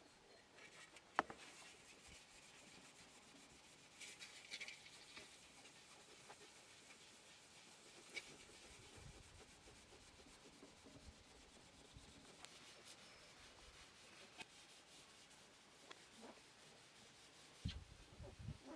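Faint rubbing of a cloth polishing crystalline wax into the surface of a pit-fired ceramic pot. There is a sharp click about a second in and a few low bumps near the end.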